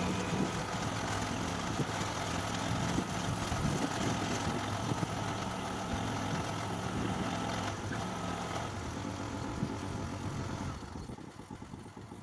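Small engine running steadily. Near the end it drops to a quieter, evenly pulsing idle.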